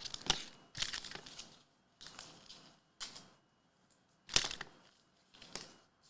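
Crinkling and rustling of trading-card packaging and cards being handled, in about six short bursts with quiet gaps between them.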